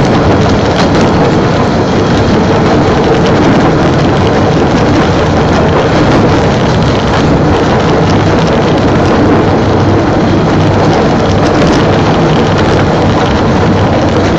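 Small rail vehicle travelling along the track, its engine running steadily under an even running noise.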